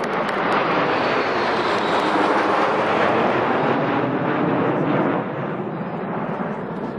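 Jet noise from a formation of Kawasaki T-4 twin-turbofan jet trainers flying low overhead: it swells over the first couple of seconds, its high edge sliding down in pitch as the jets pass, and eases off about five seconds in.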